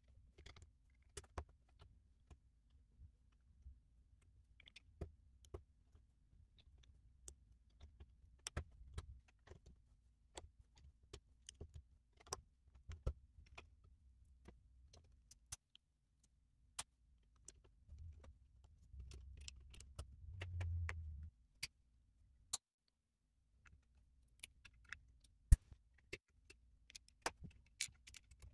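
LEGO bricks being fitted and pressed together by hand: sharp, irregular plastic clicks and snaps, with a low rumble of handling on the table that swells for a few seconds about two-thirds of the way through.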